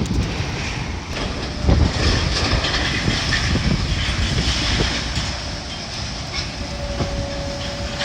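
Heavy demolition machinery working with a continuous rumble and clatter of breaking debris, wind buffeting the microphone; a steady tone sets in about seven seconds in.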